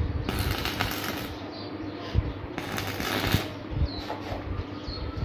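Stick arc welding: two short bursts of crackling arc as scroll rings are tack-welded to the flat-bar frame of an iron grill, with a steady hum underneath.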